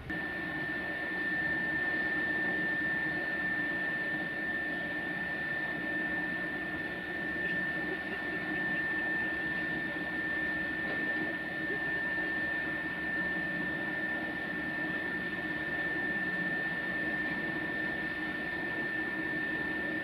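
Electric motors of the railway carriage lifting jacks running steadily, a constant high whine over a lower hum, as the screw jacks raise the passenger carriage.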